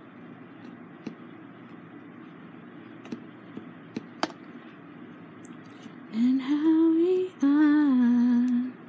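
A woman humming a tune in two held phrases near the end, the first rising, the second falling. Before it, a steady hiss with a few light clicks of the diamond-painting pen setting resin drills on the canvas.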